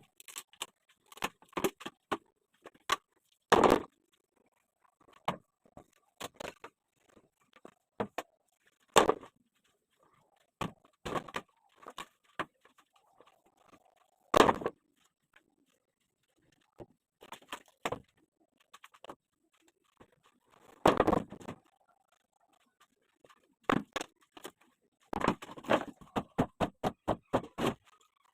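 Irregular knocks, thuds and clatters of shuttering plywood formwork being stripped off concrete, with a few louder bangs and a quick run of taps near the end.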